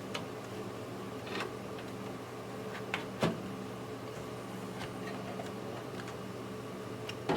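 A few short clicks and knocks of hardware being handled in a PC case, the loudest about three seconds in, over a steady low hum.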